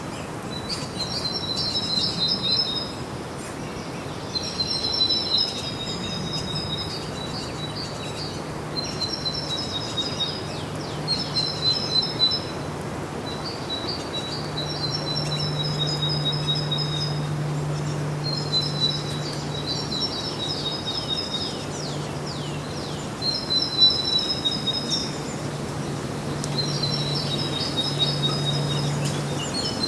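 Songbird singing one short phrase after another, a dozen or so, each a second or two long, with a low steady hum in the background.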